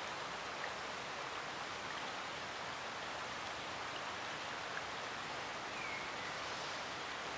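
Steady outdoor background hiss, with a few faint, brief chirps scattered through it, one a short downward glide about six seconds in.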